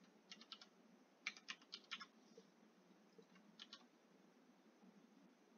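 Faint computer keyboard typing: three short bursts of keystrokes, the longest about a second and a half in.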